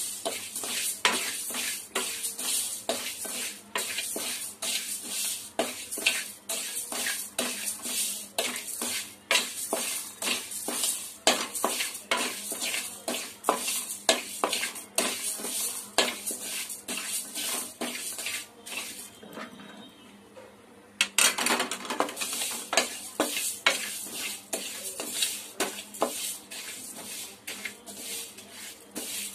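A spoon stirring and scraping dry rice and moong dal around a pan as they are dry-roasted to take away the raw smell: a quick run of scrapes, about two to three a second, that stops for about two seconds near two-thirds through and then starts again.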